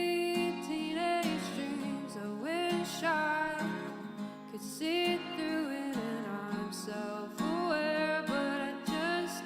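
A singer singing an original song over acoustic guitar.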